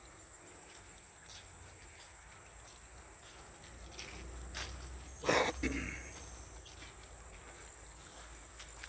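Steady high-pitched chirring of late-summer crickets and other insects, with light footsteps on a leaf-littered dirt path and one brief loud scuff a little past the middle.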